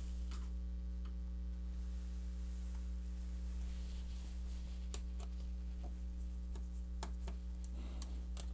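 Steady low electrical mains hum, with a few faint light clicks of a small hand tool working on an opened laptop's internals, mostly in the second half.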